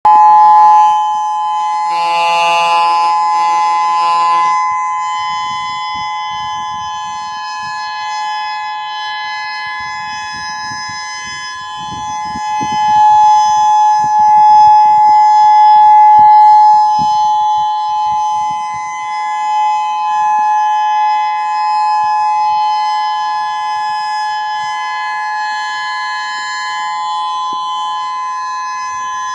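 Civil defense tsunami warning siren sounding one long, steady tone for its monthly test. It swells louder through the middle and then eases off again. A lower, buzzy tone sounds along with it for the first four seconds or so.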